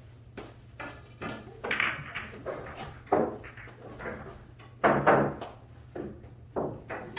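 A run of irregular knocks and thumps, the loudest about five seconds in, over a steady low hum.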